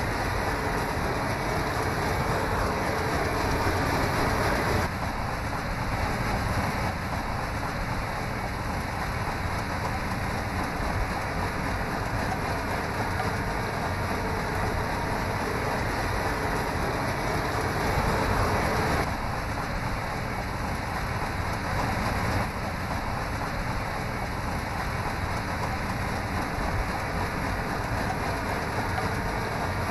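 Sugarcane harvester at work in the field: a steady, dense rushing noise of machinery with no clear engine note. It changes in tone about 5 seconds in and again near 19 and 22 seconds.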